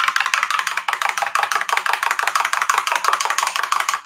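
Metal spoon stirring quickly in a Pyrex glass measuring jug of green juice, clinking rapidly and evenly against the glass at about ten clicks a second.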